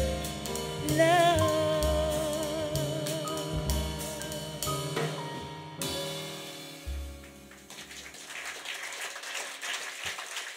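Live jazz band finishing a song: a woman sings a long held final note with vibrato over piano, upright bass and drums, and the band plays out its closing chords. The music dies away, and audience applause starts about three-quarters of the way through.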